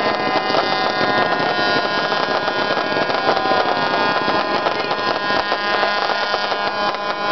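Many horns sounding together in overlapping steady tones over a dense, noisy din.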